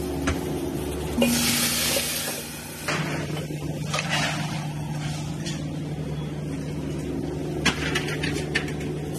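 Commercial kitchen ambience: a steady mechanical hum of kitchen equipment, with a burst of hissing about a second in that lasts under two seconds, and a few sharp clicks near the end.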